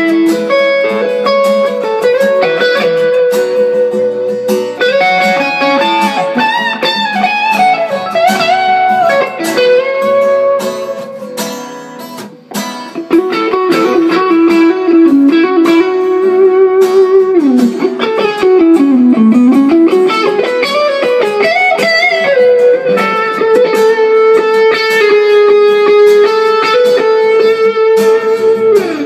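Guitar improvisation: a lead line of held notes with pitch slides and bends over chords. The playing thins briefly about twelve seconds in, and a deep bend dips down and back up around eighteen to twenty seconds in.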